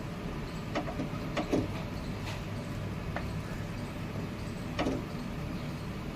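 A handful of light knocks and scrapes of a spatula against a tawa as pav roasting in butter is turned, over a steady low hum.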